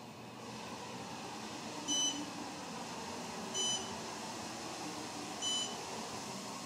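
Otis Gen2 elevator car beeping as it passes each floor: three short high beeps a little under two seconds apart. Under them is the steady hum of the car travelling up.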